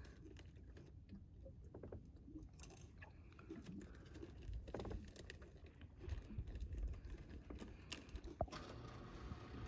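Faint low rumble of wind on the microphone, with scattered light clicks and taps from the handheld camera being moved.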